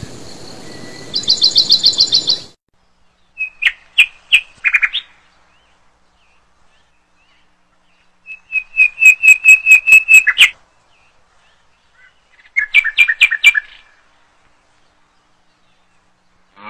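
Bird calls: a fast high trill that stops sharply about two and a half seconds in, a few separate chirps around four seconds, a longer rapid trill of about a dozen notes near the middle, and a shorter trill around thirteen seconds, with silence between the groups.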